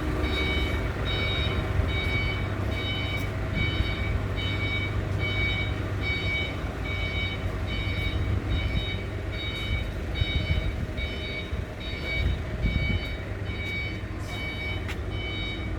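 JCB backhoe loader's diesel engine running, with its reversing alarm beeping steadily about one and a half times a second.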